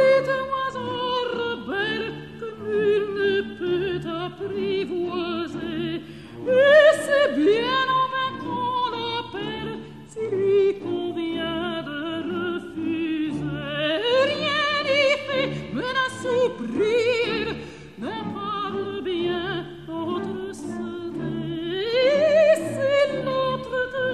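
Operatic solo voice singing with heavy vibrato over accompaniment. It holds long notes, and each phrase starts high and slowly sinks in pitch.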